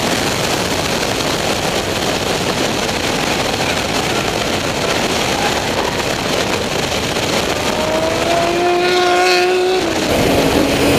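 BMW M3 at racing speed heard from inside the cabin: loud, steady engine, wind and road noise. Near the end a tyre squeal of about two seconds, rising slightly in pitch, as the tyres slide at the limit of grip.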